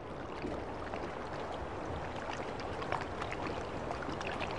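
Water rushing and splashing: an even hiss dotted with small splashy clicks.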